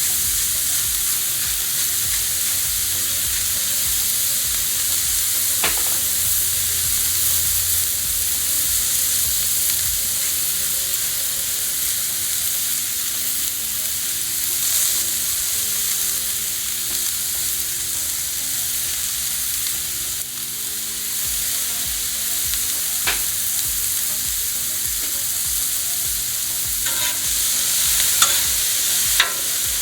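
Chopped sausage and peppers and onions sizzling steadily on a hot Blackstone gas griddle. A few sharp spatula clicks come through, the most of them near the end.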